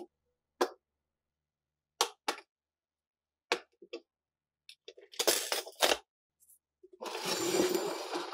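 Small metal parts clinking as they are handled or set down: a few separate clinks, then a short clatter about five seconds in, and a hissing rush of noise starting near the end.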